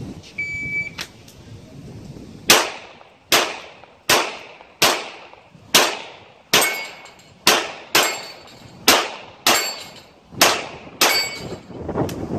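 A shot-timer start beep, then a string of about a dozen gunshots at steel targets, fired about one every three-quarters of a second, each shot trailing off with a short echo.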